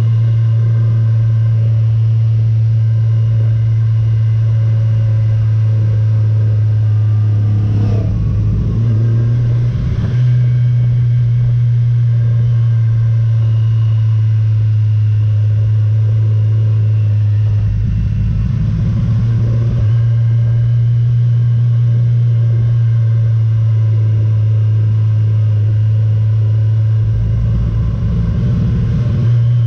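Motorcycle engine running steadily at cruising speed, a loud even drone. Three short spells of low rumble break in, with a brief change of engine pitch about eight seconds in.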